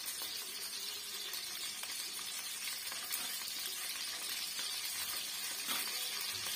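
Ghee sizzling steadily in a karahi, a steady hiss, as cardamom pods are cracked and dropped into the hot fat.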